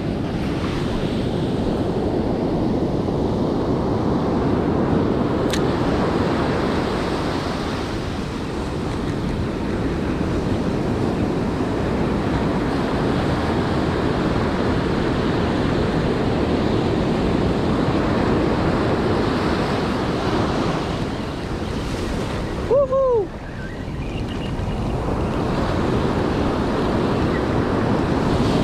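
Ocean surf breaking and washing up a sandy beach, with wind buffeting the microphone; the wash swells and eases slowly. Near the end a brief sound falls in pitch.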